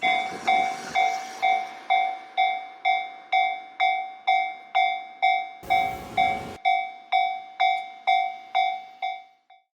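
Railway level crossing warning bell ringing at a steady pace of about two strikes a second, each strike dying away, until it falls silent near the end. A short burst of rushing noise cuts across the strikes about six seconds in.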